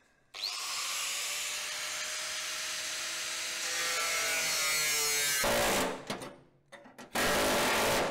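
Angle grinder with a cut-off disc spinning up with a rising whine and cutting through rusted steel panel for about five seconds, then winding down. After a short pause, a separate loud burst about a second long near the end.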